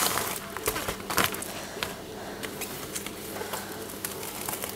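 Bubble-wrap packaging being handled and opened: soft plastic rustles and crinkles with a few sharper clicks, most of them in the first second or so.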